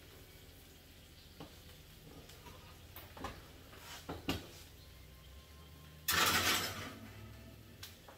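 An oven door being opened and a skillet of cornbread batter set on the metal oven rack: several light knocks and clanks of metal, then a loud noisy scrape lasting about a second, about six seconds in.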